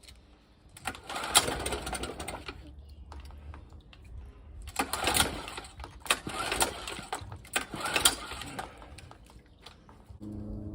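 Recoil starter of a Honda 8 hp four-stroke outboard pulled several times, the engine cranking in short surges without catching. This fits an engine that has spark and fuel but still won't run, with the carburettor blocked.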